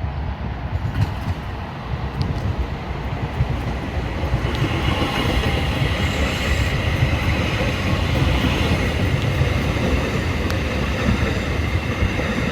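A DART electric light rail train running close past on the tracks: a steady rumble of wheels on rail that grows louder from about four seconds in.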